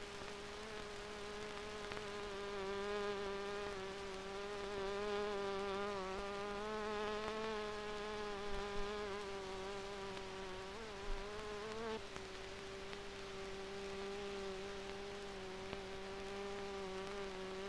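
A steady, insect-like buzzing drone that holds one pitch and wavers slightly in pitch throughout.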